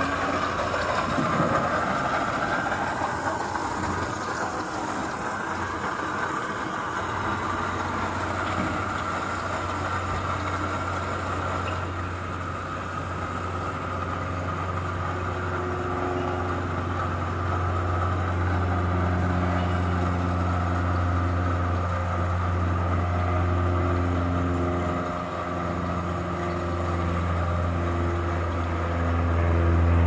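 Remote-controlled electric ground tug under a helicopter's skids, running with a steady low hum that grows louder after the first few seconds while a higher whine fades away.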